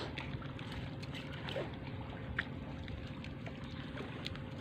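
Steady low mechanical hum with a thin, even tone above it and a few faint scattered clicks.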